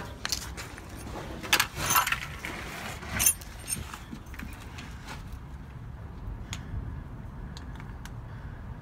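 Metal clinking and rattling as tools and brake parts are handled, with a cluster of sharp clinks in the first few seconds and then only a few faint ticks over a low steady rumble.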